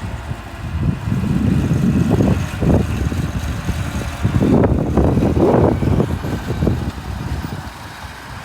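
Diesel engine of heavy earthmoving machinery running, growing louder about a second in and again around the middle.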